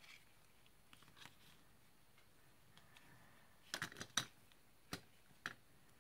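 Die-cut cardstock pieces being handled and laid on a card: faint paper rustles, a quick cluster of sharp ticks a little under two-thirds of the way through, then two single ticks, over quiet room tone.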